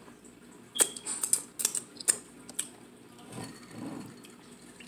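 A quick run of sharp clicks and taps from about one to nearly three seconds in, like small objects knocking at a dinner table, then soft sipping and swallowing from a glass of drink.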